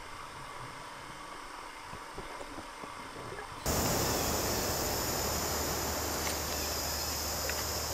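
Muffled underwater noise with a few soft knocks, then an abrupt cut a little under halfway to louder outdoor forest ambience: a steady, high-pitched insect buzz over hiss and a low hum.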